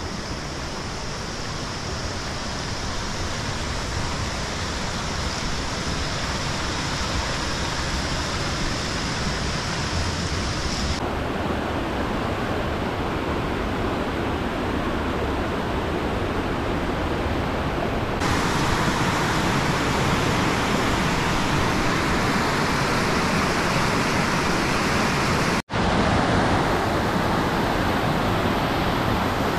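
Mountain river rushing over rocks in a steady stream of white noise, louder from about eighteen seconds in, with a brief dropout about three-quarters of the way through.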